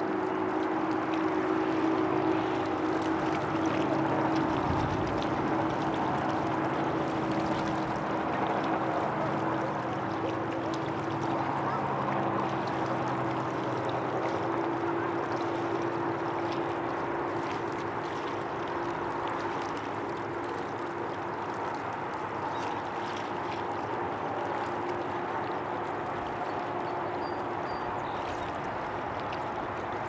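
Tennessee River water flowing and lapping, with a steady low hum underneath.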